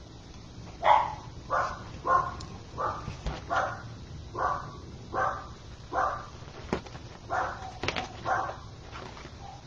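A dog barking over and over, about a dozen barks at a fairly even pace, starting about a second in.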